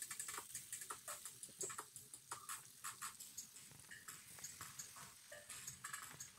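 Faint, irregular popping and crackling, several pops a second, from a pan of hot melted butter and seasoning as raw shrimp are laid into it by hand.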